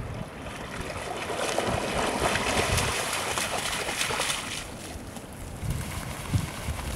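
Labrador retriever splashing through shallow water as it wades out of a lake onto the bank, the splashing swelling for about three seconds and then dying away.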